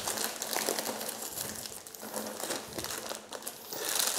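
Clear cellophane bag crinkling as hands grip its twisted neck and wrap a gold plastic ribbon around it: a continuous run of small crackles that grows louder near the end.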